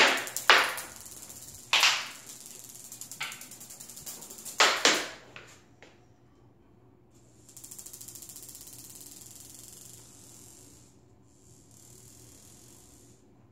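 A marble rolling over a tiled floor, rattling in a rapid run of clicks, with several sharp knocks in the first five seconds as it is batted about and hits hard surfaces. After that it goes on as a quieter, steady rolling hiss.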